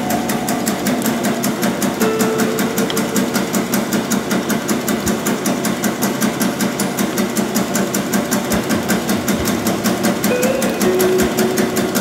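Bakso (meatball) forming machine running, its mechanism clattering in a fast, even rhythm of about six strokes a second.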